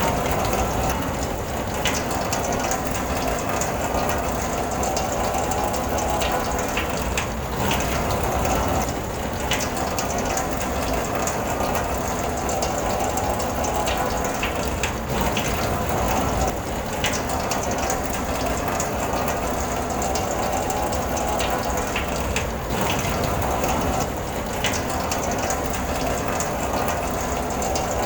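Rain falling on a car, heard from inside the cabin: a steady, dense patter of drops with scattered sharper ticks over a low rumble.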